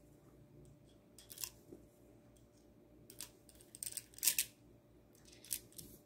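Small metal screwdriver tips clicking and scraping as they are picked up and slid one by one into the hollow handle of a pen-style multi-tool, a few faint, irregular clicks.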